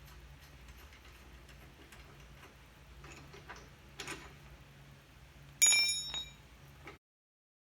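Faint clicks and taps of metal parts and hand tools being handled, with one sharper metal clink about five and a half seconds in that rings briefly. The sound cuts off to dead silence near the end.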